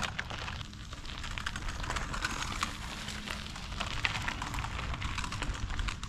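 Irregular crackling and rustling over a steady low rumble.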